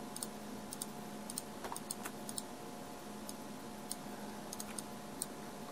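Scattered faint clicks of a computer keyboard and mouse, a few a second at an uneven pace, over a low steady hum.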